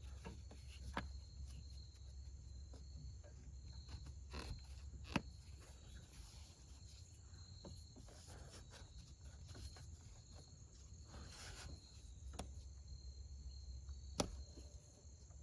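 Faint steady chirping of crickets, with a low background hum and a few light clicks and taps from the hose being handled.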